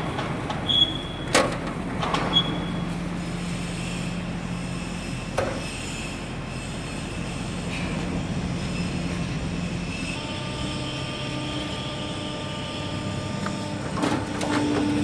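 Hydraulic guillotine shear running with the steady hum of its hydraulic pump, with a few clicks and short high beeps in the first seconds and a knock a little over five seconds in. About ten seconds in the hum changes to a higher, several-toned whine, and near the end there is a louder clunk.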